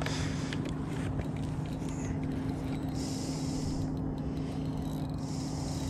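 Electric bow-mounted trolling motor humming steadily at one pitch. A short high hiss rises over it twice, about three seconds in and again near the end.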